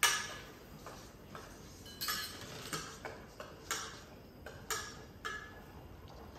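A metal utensil clinking against the inside of a stainless steel pot while its contents are stirred. There are about six irregular sharp clinks, the first the loudest.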